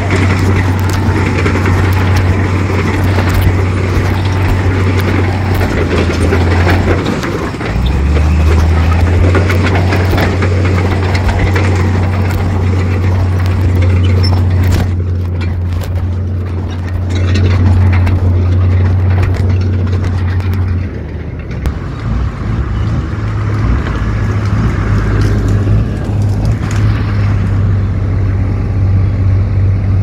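Heavy diesel engine of earthmoving machinery (bulldozer or dump truck) running steadily with a low drone, dropping in pitch about a quarter of the way in and shifting again about two-thirds through, with scattered clatter.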